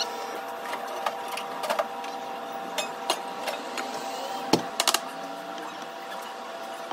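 Light clicks and knocks of coasters and ceramic mugs being set down on a wooden serving tray, the loudest knock a little past halfway with a quick clatter just after, over a steady machine hum.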